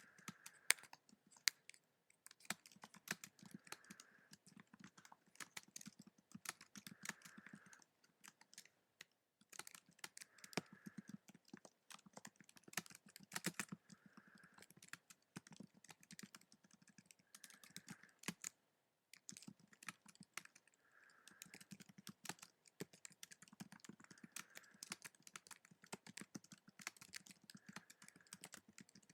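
Faint, fast typing on a keyboard: a dense patter of key clicks, broken by short pauses about nine and nineteen seconds in.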